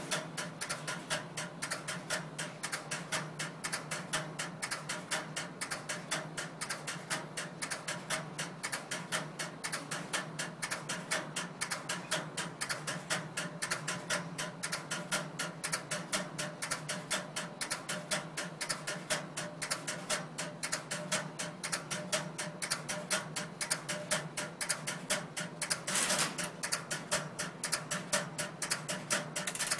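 A bank of timer relays in an electromechanical telephone exchange clicking nonstop in a fast, steady, catchy rhythm. These relays make and break the circuits that time the ringing, ringback and busy signals.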